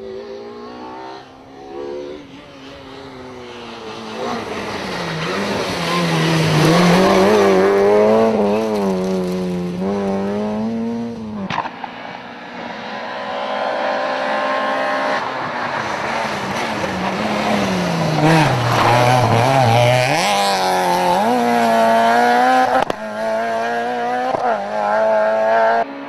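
Two rally cars going flat out on a tarmac stage, one after the other. First a Peugeot 206 approaches and passes, its engine pitch climbing and dropping through gear changes. After a sudden cut about halfway, a Peugeot 106 does the same: its engine note falls low under braking near the end, then revs hard back up.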